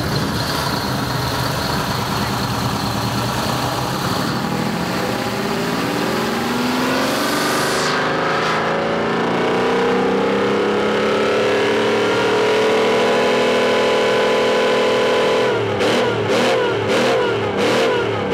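Supercharged 12V71 Detroit Diesel two-stroke V-12 engine revving: the revs climb steadily over about eight seconds, hold high, then near the end the throttle is blipped several times in quick succession.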